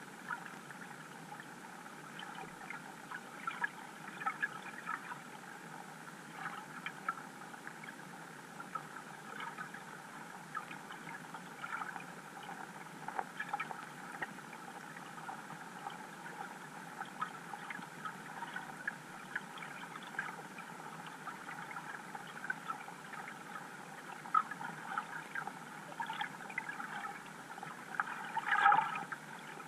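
Underwater ambience heard through a GoPro in its waterproof housing: a steady muffled hiss with many scattered faint clicks and ticks, and a louder crackling burst near the end.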